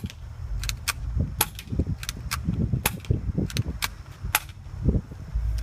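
Airsoft gun firing a rapid string of single shots, about a dozen sharp pops at an uneven pace, that stop a little over four seconds in as the gun runs out of BBs.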